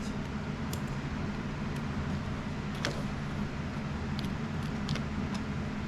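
Steady low mechanical hum, with a few faint, light clicks scattered through it.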